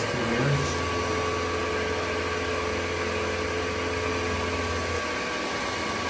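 Dyson 360 Vis Nav robot vacuum running steadily as it works along the base of a wall, a constant motor whir with a steady tone through it. Its low hum drops off about five seconds in.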